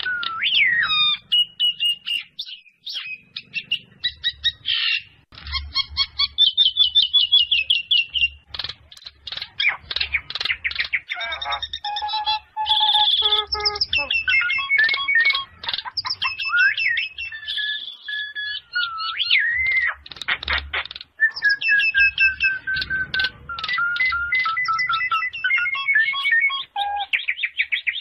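Common myna (Indian myna) singing: a long, varied run of rapid chattering trills, whistled notes and gliding calls.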